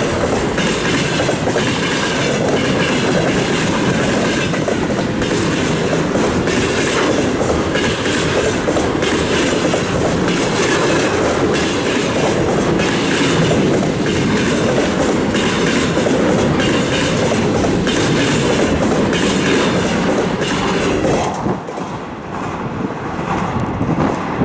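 Container freight train rolling past, its wheels beating a steady clickety-clack over the rail joints. The sound drops and thins about three seconds before the end.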